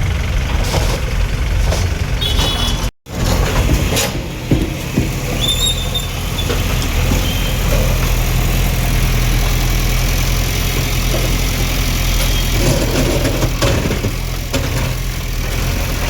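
A heavy engine running steadily, with a brief high squeak about five seconds in. The sound drops out for an instant near three seconds.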